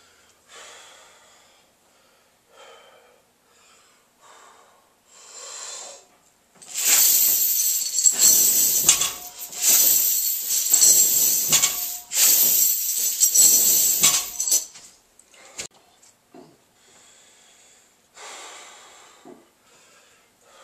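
Heavy breathing, then three quick deadlift reps with a chain-loaded barbell: the chains rattle loudly through each rep, and each rep ends with the plates knocking down on the floor. Hard breathing follows.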